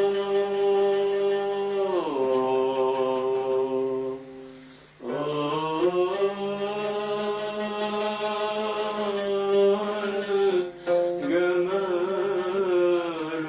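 Music in long held melodic notes, sliding down about two seconds in, dipping briefly near five seconds, then carrying on in sustained notes with small bends.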